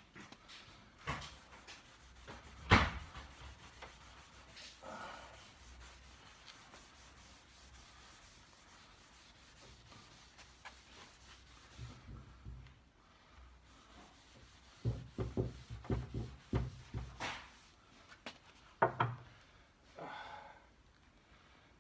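A pad being rubbed over a waxed pine tabletop, giving a faint scraping rub broken by scattered knocks of the hand and pad on the wood. A sharp knock about three seconds in is the loudest sound, and a run of knocks comes in the last third.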